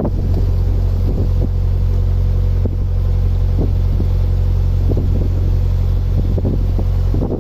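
Narrowboat engine running steadily under way, a low even drone, with some wind buffeting the microphone.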